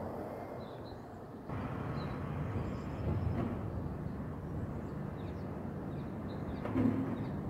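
Steady low outdoor rumble that grows louder about a second and a half in and swells briefly near the end, with faint bird chirps scattered over it.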